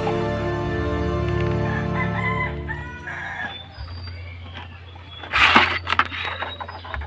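Background music that fades out about halfway through, then a rooster crowing, loudest a little past five seconds in.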